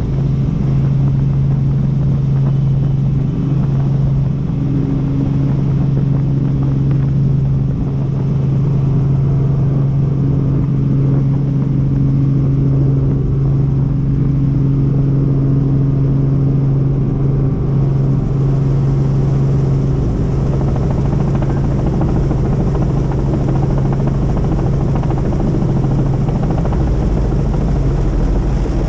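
Helicopter in flight, its engine and rotors running steadily with a constant low hum.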